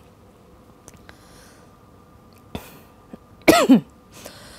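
A woman coughs twice in quick succession about three and a half seconds in, after a quiet pause with only room tone.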